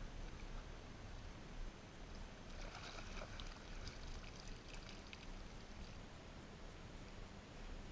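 Faint water sounds: lapping and trickling, with a splashier stretch with small clicks about three seconds in, over a low rumble.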